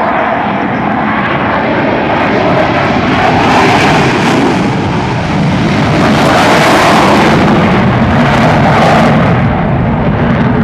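F-15E Strike Eagle's twin turbofan engines in afterburner during its takeoff run and pull-up into a vertical climb. The jet noise is loud and steady, and swells about three seconds in and again about six seconds in.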